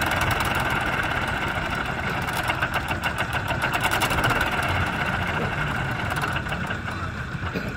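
Old Zetor tractor's diesel engine idling steadily, with an even, rhythmic exhaust beat.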